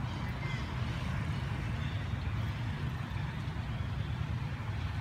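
Steady low rumble of a running motor vehicle engine, with a few faint high chirps near the start.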